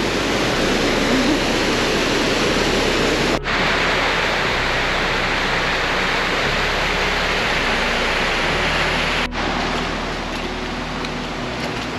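Waterfall pouring: a steady, even rush of falling white water, cut by two brief dropouts, about three and a half seconds in and about nine seconds in, and slightly softer after the second.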